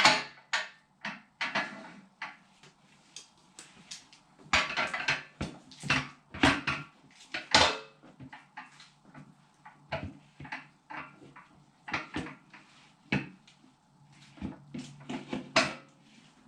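Irregular metal clanks and knocks as dog blocks are set and a motorcycle wheel is locked onto a manual tire changer by its cam.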